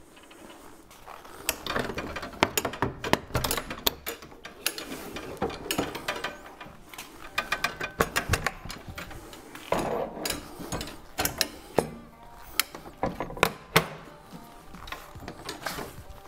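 Metal legs and leg locks of a folding wallpaper booking table being unlocked and swung out: an irregular run of sharp metal clicks, clacks and rattles starting about a second and a half in.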